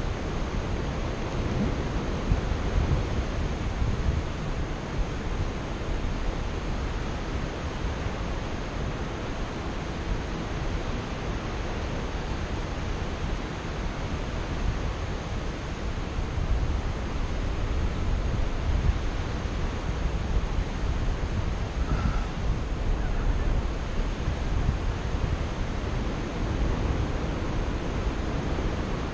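Steady wind rushing over the microphone of a camera worn by a paraglider pilot in flight.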